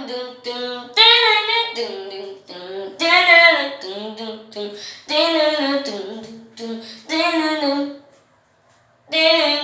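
A high voice singing unaccompanied in short phrases, with a brief pause near the end before it starts again.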